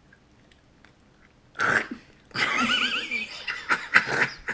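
Teenage boys' wordless vocal reactions to tasting a booger-flavoured BeanBoozled jelly bean. About one and a half seconds in comes a sudden loud cry, then a couple of seconds of loud, high-pitched squealing laughter mixed with gag-like noises.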